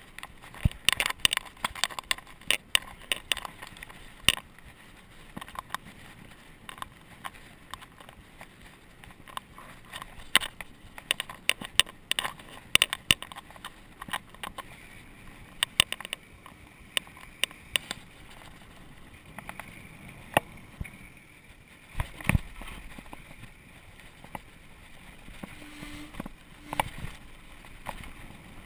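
Mountain bike coasting downhill, rattling and clattering with sharp irregular clicks and knocks as it rolls over bumps in the road and trail, over a steady hiss of tyres and wind.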